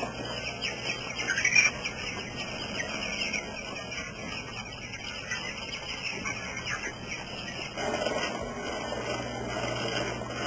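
Animal calls over steady high-pitched background chirring, with one louder rising call about one and a half seconds in; near the end the chirring gives way to a lower, rougher noise.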